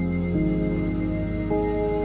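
Ambient background music: slow, held chords that shift twice.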